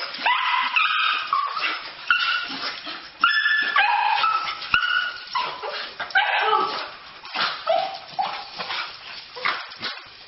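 Dogs whining and yipping in excited greeting: a run of short, high-pitched cries one after another.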